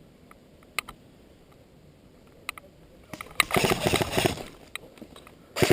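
Airsoft electric gun firing a rapid full-auto burst of about a second, starting a little past halfway, with a second burst beginning right at the end; a few single clicks before it.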